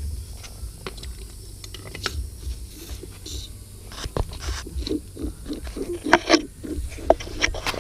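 Irregular clicks, crunches and scrapes of hand tools and parts being worked loose, the sharpest knocks coming in the second half.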